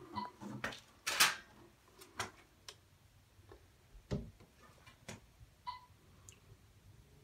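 Scattered light clicks and knocks of hands handling a Miata hard top and its latch hardware. The sharpest click comes about a second in, and a duller knock with a low thump about four seconds in.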